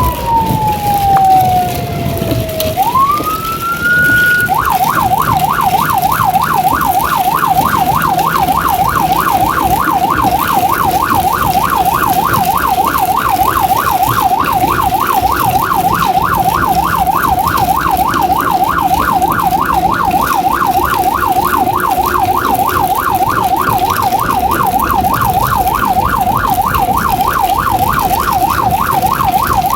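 Electronic emergency-vehicle siren on a Code 3 run. A wail slides down and climbs back up, then about four seconds in it switches to a fast yelp, rising and falling about three times a second. A low vehicle engine runs underneath.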